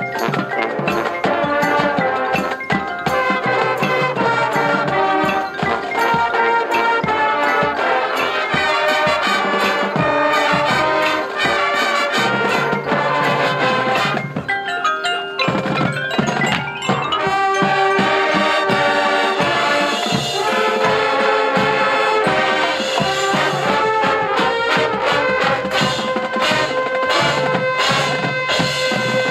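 Marching band playing its show music, with front-ensemble mallet percussion such as glockenspiel and marimba, brass, and frequent drum and percussion hits.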